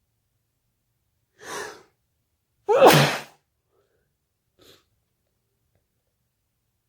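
A person sneezing once. A quieter breathy build-up comes about a second before a loud, sudden sneeze whose voiced part falls in pitch, and a faint short breath follows about a second and a half later.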